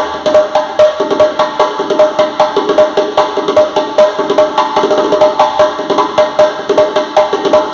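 A drum played in a fast, steady rhythm: sharp strikes, about three to four a second, each with a short ringing pitched tone.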